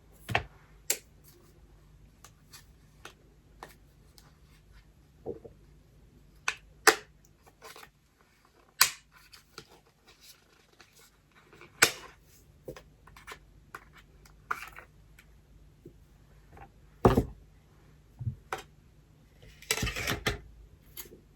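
Irregular sharp clicks and taps from small hard plastic parts being handled, about a dozen of them, with a short scraping rustle near the end. These are the sounds of fiddling with a tablet's SIM card.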